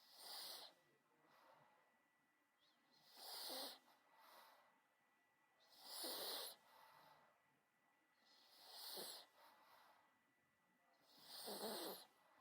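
A terrier's snorting, rasping breaths, five loud ones at even spacing about every three seconds, with softer breaths between them.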